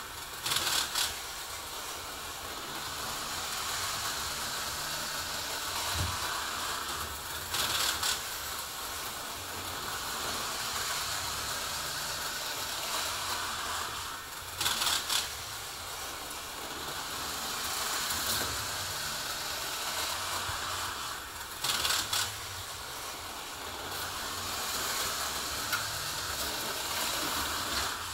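HO-scale model locomotive running laps on its track, its small electric motor and wheels making a steady whir. A louder clatter comes back about every seven seconds, four times, as it comes round.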